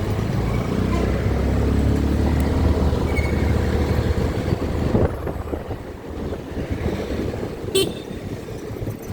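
Road traffic heard on the move: a steady low rumble of engine and wind, heaviest in the first half, with a vehicle horn tooting and a short beep near the end.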